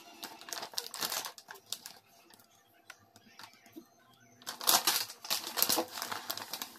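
A paper instruction leaflet from a hair-dye kit rustling and crinkling as it is handled and unfolded. It goes quiet for a couple of seconds in the middle, then gets louder about four and a half seconds in.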